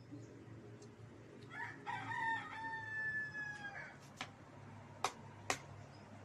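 A rooster crows once, a call of about two seconds that ends in a long held note falling slightly at its close. About five seconds in come two sharp clicks half a second apart, over a low steady hum.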